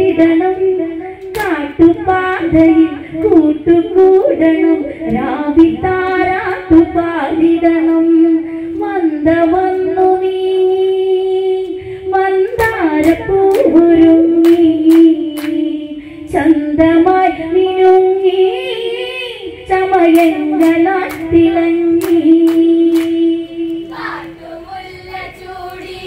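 Women singing an Onamkali song in Malayalam with long held notes, with sharp hand claps from the dancers, most of them in the middle stretch.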